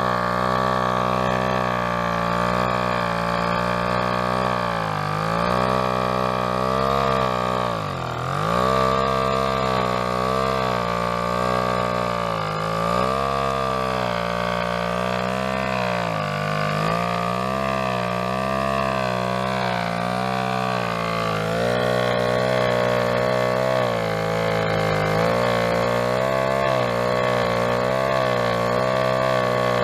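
Small two-stroke engine running on hydrogen gas, driving a 12-volt motor used as a generator. Its speed keeps sagging and recovering every couple of seconds, with one deep dip about 8 seconds in.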